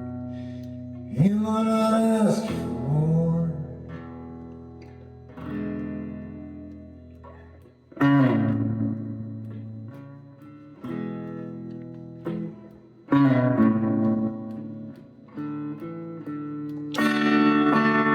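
Guitar playing an instrumental passage: chords plucked or strummed every two to four seconds and left to ring out. The chord about a second in has notes that bend in pitch.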